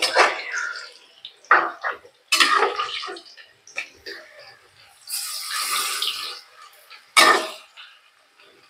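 Kofta balls deep-frying in hot oil in a metal kadai, sizzling in bursts, with a long sizzle about five seconds in, and a metal slotted spoon scraping and clinking against the pan, sharpest about seven seconds in.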